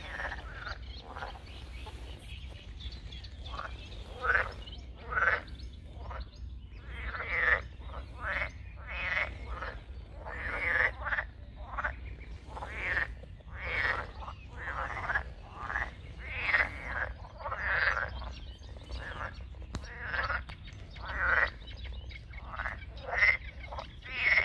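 A chorus of frogs croaking in a pond, many calls overlapping at roughly one a second.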